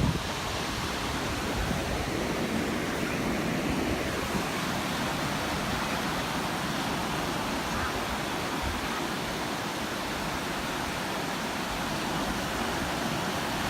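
Ocean surf: waves breaking and washing ashore in a steady, unbroken wash of noise.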